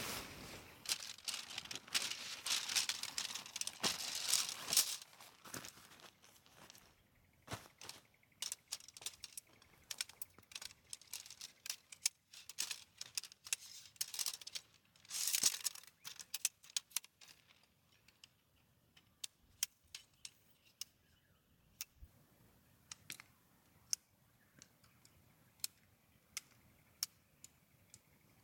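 Camping gear being handled during camp setup: rustling and crinkling with many sharp clicks and clinks. Louder rustling comes in the first few seconds and again about fifteen seconds in, then isolated clicks about once a second.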